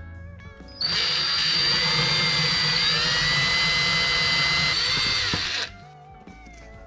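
Cordless drill with a twist bit drilling into a laminate kitchen cabinet panel for new handle holes. It runs as a steady high whine for about five seconds, starting about a second in and dipping briefly in pitch midway before it stops. Guitar music plays underneath.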